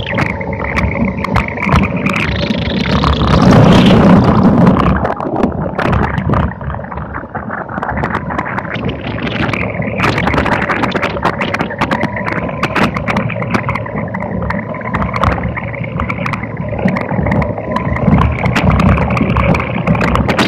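On-board sound of an Electrathon electric race car driving on a wet track: a steady motor whine over tyre and wind noise, with frequent clicks and rattles. It swells to a louder rumble about three to five seconds in.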